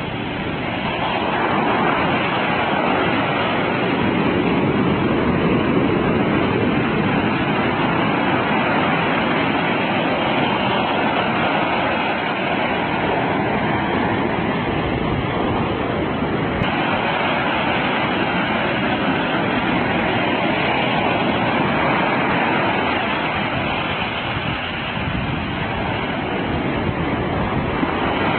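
Ocean surf breaking on a beach: a steady rushing wash of noise that swells and eases gently.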